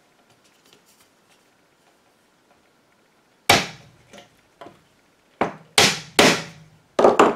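Small hammer tapping nails into the wooden rim of a bodhran frame, fixing the wet, stretched goatskin head. After a few quiet seconds of handling, about eight sharp taps come in quick succession, some in close pairs.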